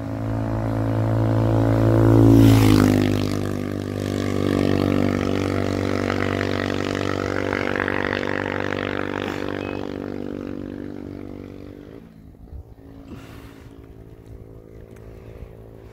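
A motor vehicle passing close by on the road: its engine drone swells to a peak about two and a half seconds in, drops in pitch as it goes by, then fades away over the next ten seconds.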